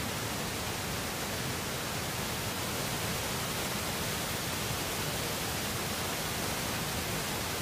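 Steady rushing of muddy floodwater pouring across a paved highway and spilling over its edge, with rain falling.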